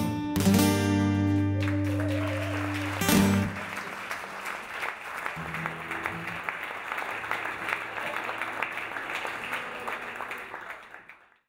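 A song's closing guitar chord ringing out, struck one last time about three seconds in, followed by an audience applauding until the sound fades out near the end.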